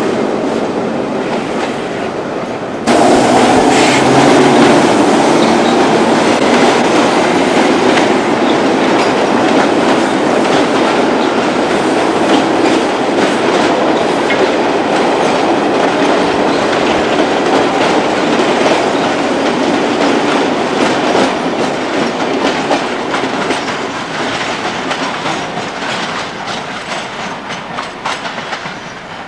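Sydney single-deck electric suburban train running past at close range, its wheels clattering over the rail joints with many sharp clicks. The sound jumps louder about three seconds in, then fades over the last few seconds as the train draws away.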